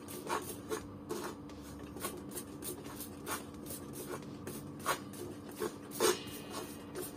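A metal spoon scraping and stirring ethanol-wetted powder in a stainless steel pot, in short irregular strokes. A faint steady hum runs underneath.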